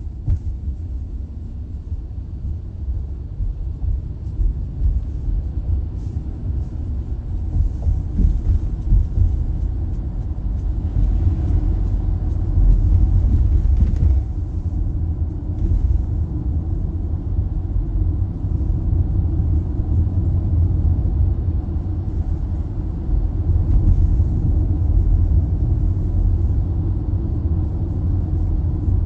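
Low, steady road and engine noise of a Toyota car driving, heard from inside its cabin.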